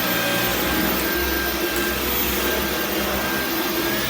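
Dyson V11 cordless stick vacuum running on boost mode, a steady suction whirr with a high motor whine that rises slightly near the end.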